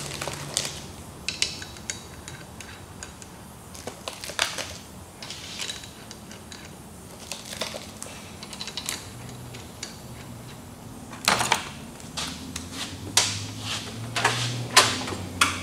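Metal clinks and rattles of ring gear bolts and small parts handled on a steel workbench as the bolts are started into a differential carrier. There are scattered light clicks, then a few louder clanks in the last few seconds.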